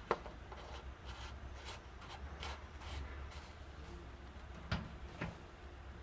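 Hands handling small parts: a sharp click just after the start and two more near the end, with light rubbing and scraping between them.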